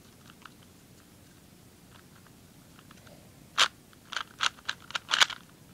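LingPo 2x2 speed cube being turned by hand, its plastic pieces clicking as they turn. A few faint clicks at first, then a quick run of sharper clicking turns starting about three and a half seconds in.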